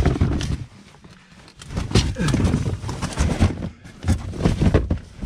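Loose rocks knocking and a cardboard box scraping as a boxed inflatable boat is shoved ahead through a tight crawl over rubble, in irregular bursts with a short lull about a second in.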